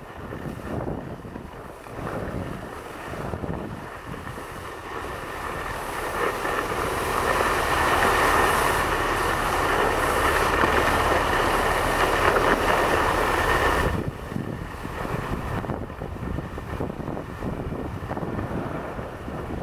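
Wind rushing over the microphone while skiboards slide and scrape over groomed snow on the way down the slope. It grows louder about six seconds in and drops off suddenly near fourteen seconds.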